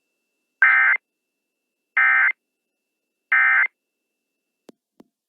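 Emergency Alert System end-of-message code: three short, identical bursts of rasping digital data tone (the SAME "NNNN" signal), about a second and a third apart, marking the close of the broadcast alert test. Two faint clicks follow near the end.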